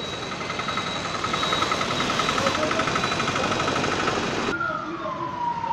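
Vehicle siren sounding over traffic noise: a fast, pulsing warble, then, after an abrupt change about four and a half seconds in, a single long tone falling steadily in pitch.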